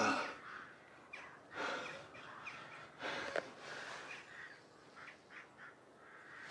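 An injured man's heavy, pained breathing and gasps, a few breaths about a second and a half apart.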